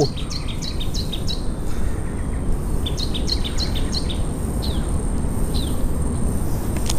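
A small bird calling in quick runs of short, high, falling chirps, two runs, then two single falling notes, over a steady low hum of outdoor background noise.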